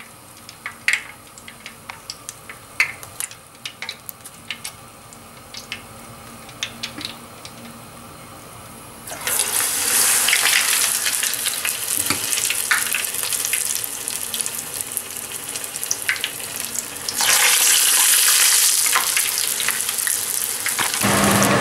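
Batter-coated borage leaves frying in a pot of hot sunflower oil. Light clicks of a metal spoon come first. About halfway through, a loud hissing sizzle starts suddenly as a leaf goes into the oil, eases off, then surges again as another goes in.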